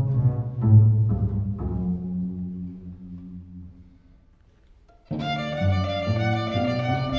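String chamber orchestra with cellos and double basses playing. Accented low notes die away to near quiet about four seconds in. About a second later the full string ensemble comes in suddenly with a sustained high chord over moving low notes.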